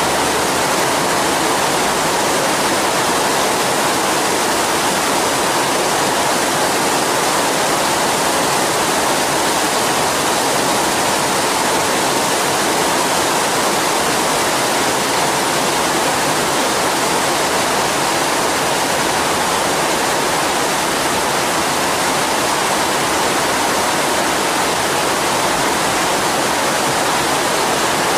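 Heavy rain pouring down steadily in a downpour, a dense, even hiss with no let-up.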